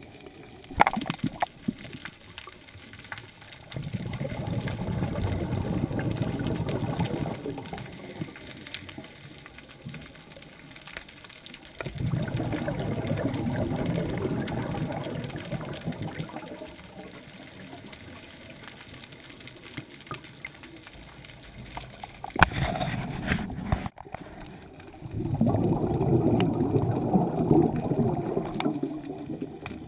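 Scuba regulator exhaust bubbles heard underwater: three long bubbling exhalations of a few seconds each, separated by quieter gaps, with two sharp clicks.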